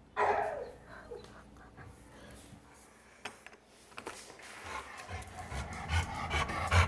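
An excited male dog panting hard, the breaths getting louder and more rhythmic over the last two seconds. It opens with a short loud falling whine.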